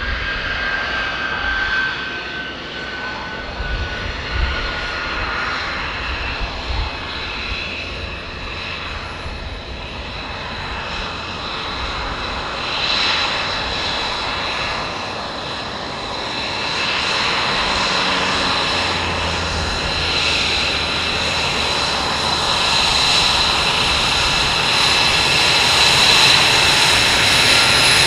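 Lockheed Martin F-22 Raptor's twin Pratt & Whitney F119 turbofan engines running at low taxi power: a steady jet roar with a high whine. A tone slides down in pitch over the first few seconds, and the whine grows louder in the second half as the jet comes closer.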